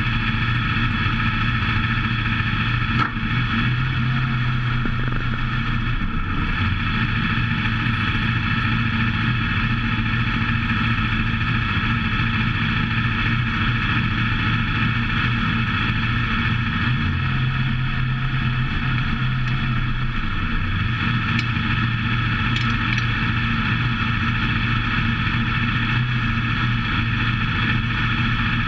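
WISSOTA modified race car's V8 engine running at low speed, heard from inside the car. It runs steadily, and its pitch rises a little twice, around four to six seconds in and again around seventeen to twenty seconds in.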